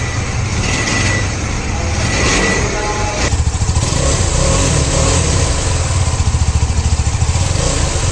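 KTM 390 Adventure's single-cylinder engine running, heard close to its exhaust silencer as a loud, even, pulsing beat that grows more pronounced about halfway through.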